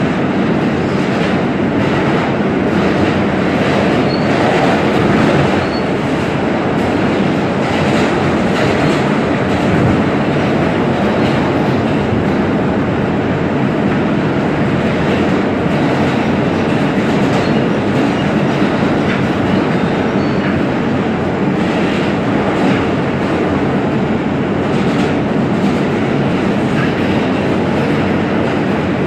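Siemens R160B subway car running at speed through a tunnel on the express track, heard from inside the car: a steady loud rumble of wheels on rail with scattered clicks over the rail joints.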